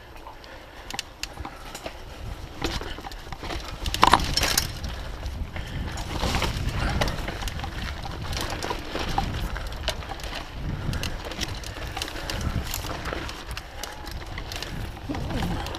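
Mountain bike ridden over a dirt singletrack: tyres rolling and rumbling on the ground, with frequent clicks and rattles from the bike over bumps and a louder knock about four seconds in. Wind on the microphone adds a low rumble.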